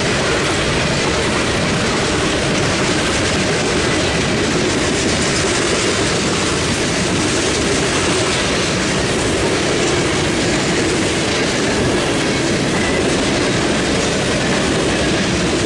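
Freight train cars rolling past at close range, a steady, loud noise of steel wheels on rail.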